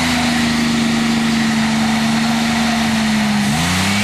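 GM 3.8-litre V6 car engine running at raised, steady revs, held open by a piece of wood wedged in the throttle. The pitch sags slightly, then dips and climbs back quickly near the end.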